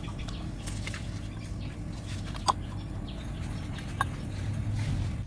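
A few faint light clicks and taps as a 60 ml plastic syringe draws oil out of an oil catch can bowl, over a steady low background rumble.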